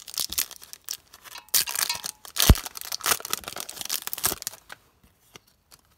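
Foil trading-card booster pack being torn open and crinkled by hand: a run of crackling and tearing with one sharp crack about halfway, dying away about a second before the end.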